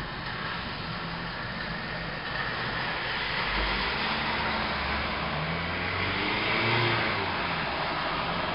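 A car driving past, its engine and tyre hiss swelling over several seconds to a peak near the end, then easing off.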